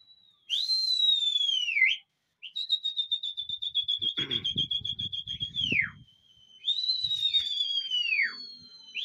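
Loud, shrill human whistling to the circling pigeon flock. First comes a drooping whistle, then a long warbling whistle held for about three seconds that ends in a sharp downward sweep, then two falling whistles overlapping near the end. Some low rumbling runs under the middle whistle.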